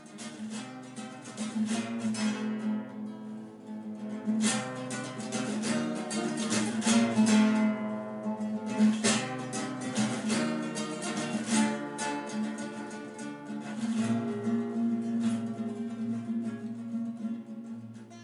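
Acoustic guitar played solo: quick plucked melody notes over a ringing low bass note, fading in over the first couple of seconds.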